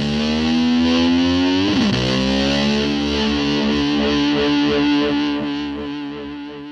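Heavily distorted electric guitar playing a rock ending: notes swooping up and down in pitch, then one long held note that fades out near the end.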